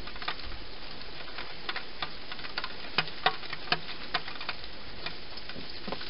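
A hedgehog eating dry food inside a plastic feeding box: irregular crunching clicks, with a few louder ones about halfway through.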